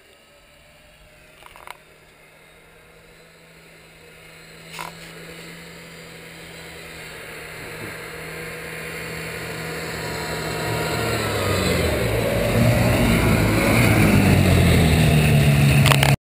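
Ski-Doo Alpine II snowmobile's two-stroke engine running steadily, growing louder as the sled approaches until it is close by near the end. The sound then cuts off suddenly.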